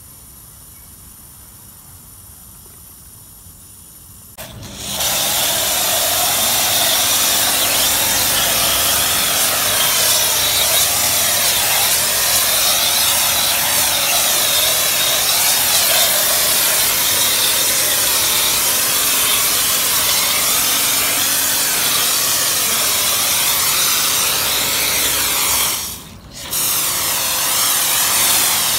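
Kärcher K7 pressure washer running and spraying snow foam through its FJ6 foam lance: a loud, steady hiss of spray over the pump's running, starting about four seconds in, cutting out for a moment near the end as the trigger is let go, then starting again.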